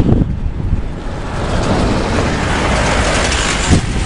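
A pickup jeep's engine running as it drives past close by, over a loud steady low rumble.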